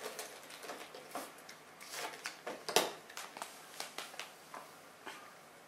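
A Shih Tzu puppy eating from a bowl: irregular small clicks and knocks of its mouth and the bowl, the loudest a little under three seconds in.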